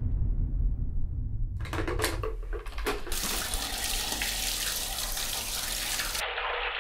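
Water running from a bathroom washbasin tap. It comes on suddenly about a second and a half in, with a few splashes, then runs steadily. A low rumble sits under the first second and a half.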